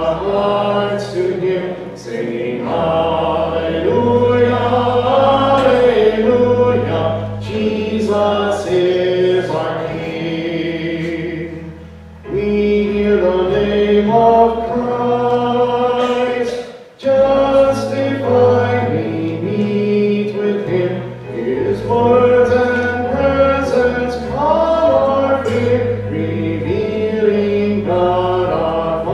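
Choir singing a hymn over low sustained accompanying notes, with short pauses between phrases about twelve and seventeen seconds in.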